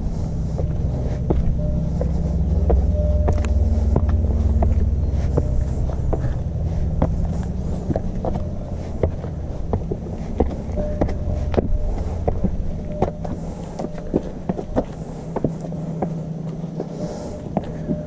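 Steady low engine hum from a motor vehicle, loudest a few seconds in, with the irregular crunch and tap of hiking footsteps on a rocky trail.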